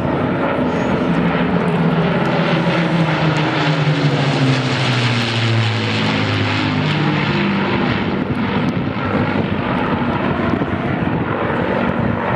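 Piston engines of an Avro Lancaster bomber, its four Rolls-Royce Merlins, with an escorting Spitfire and Hurricane, droning steadily as the formation flies overhead. The engine note falls in pitch as they pass, about halfway through.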